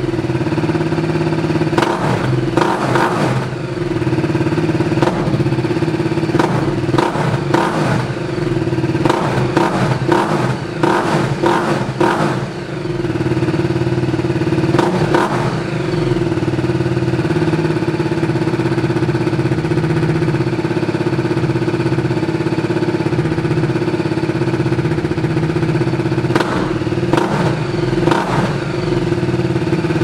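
BMW G310R's single-cylinder engine running at idle through an Akrapovic race carbon exhaust, with several short clusters of throttle blips.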